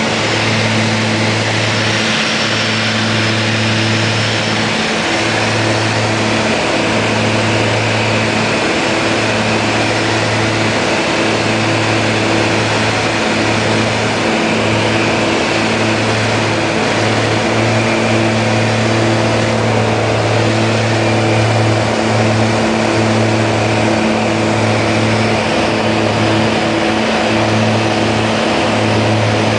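Propeller-driven light aircraft's engine and airflow heard inside the cockpit on final approach: a steady drone with a low hum that wavers slightly, over a constant rush of air noise.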